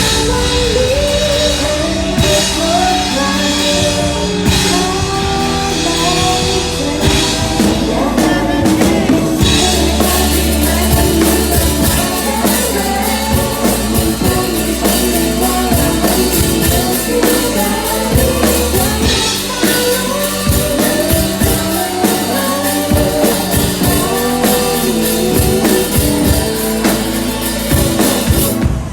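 Pop-rock song played by a band: drum kit keeping a steady beat under a melodic lead line, with guitar.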